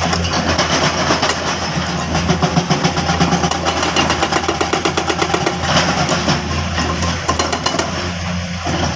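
Excavator's diesel engine running steadily, with a fast, even ticking over it.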